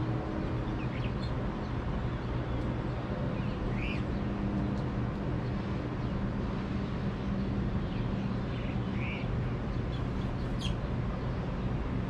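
Several short, scattered house finch chirps over a steady low rumble of city traffic.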